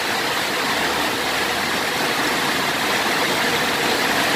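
Steady rushing background noise, even throughout, with no distinct clicks or knocks.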